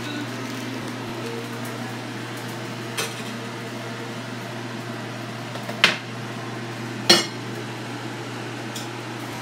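Kitchen handling sounds: a few sharp knocks, the loudest two about six and seven seconds in, over a steady low hum.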